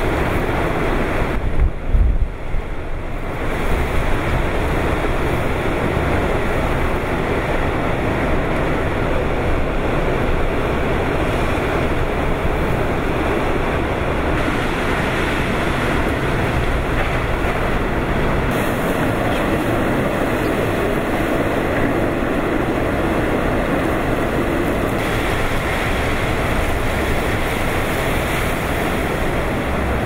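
Typhoon-force wind and driving rain, a steady heavy rush of noise, with gusts buffeting the microphone in a loud low rumble about two seconds in.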